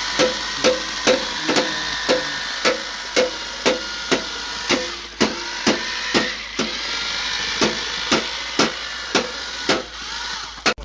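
Hammer blows struck at a steady pace, about two a second, each with a short ringing note.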